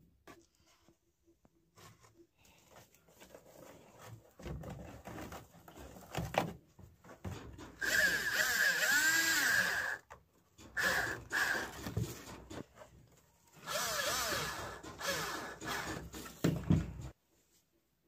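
Cordless drill running against the plastic can in several bursts, the two longest about two seconds each. Its motor whine dips and rises in pitch, and there are light handling knocks between the runs.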